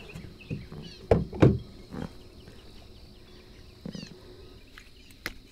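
Dull knocks on a fishing kayak as a small bass is handled aboard: two close together a little over a second in, a softer one about a second later and another near the end. Birds chirp faintly behind.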